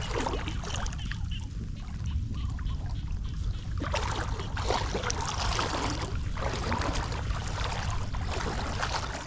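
Shallow floodwater running and trickling through grass and spilling over the edge of a flooded street, over a steady low rumble.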